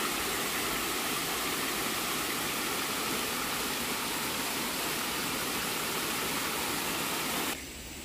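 Water rushing down a stepped concrete cascade into a drainage channel, a steady, even rush; it cuts off near the end, leaving quieter outdoor ambience.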